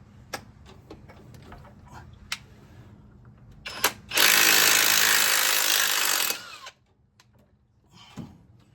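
A handheld power tool run in one loud burst of about two seconds, roughly four seconds in, winding down with a falling whine, working the old oil pressure sensor loose. Light clicks of tools and a socket being handled come before it.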